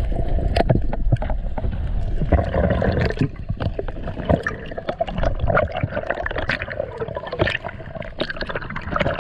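Muffled underwater sound through a diving camera's housing: water rushing past with a low rumble, broken by many short, sharp clicks and crackles.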